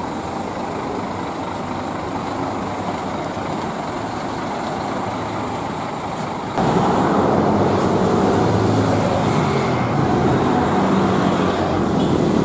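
Scania K360iB coach's engine running as the coach moves off slowly. About six and a half seconds in, the sound jumps louder to busy road traffic: a coach and motorcycles passing with their engines running.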